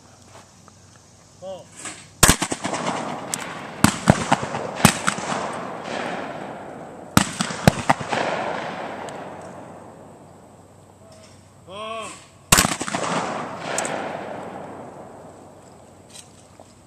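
Shotgun shots at a skeet range: a series of sharp reports, some close together in pairs, each followed by a long echo that fades over a couple of seconds.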